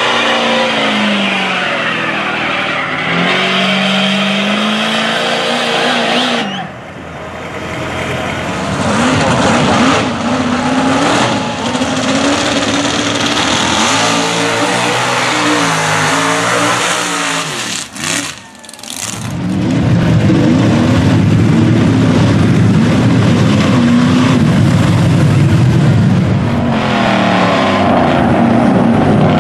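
Mud-bog truck engines revving hard, the pitch climbing and falling again and again. The sound breaks off sharply about a third of the way in and again past the middle, then runs loud and steady to the end.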